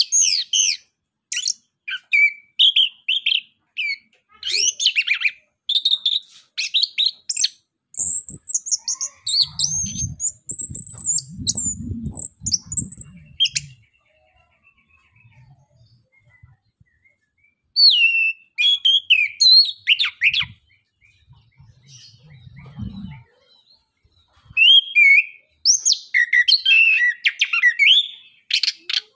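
Caged chestnut-capped thrush (anis kembang) singing in bursts of quick, varied, high chirps and warbling phrases, with a few seconds' pause around the middle. A low rumble sounds beneath the song for a few seconds about a third of the way in, and briefly again later.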